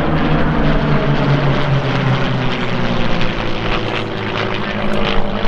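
Three World War II piston-engined fighters flying past in formation, their propeller engines running in a steady drone whose pitch falls slightly during the first two seconds as they pass.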